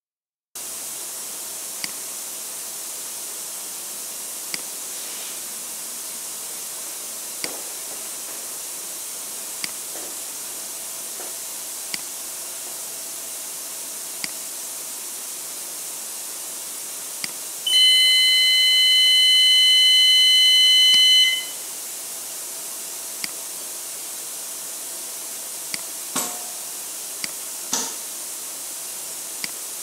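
Signal buzzer of a stack light on a torque controller, tested from the controller's hardware-check page: one steady high electronic beep lasting about four seconds, midway through. Under it a steady hiss with a light click every two seconds or so, and near the end two sharper clicks as the air valves are switched during the valve function check.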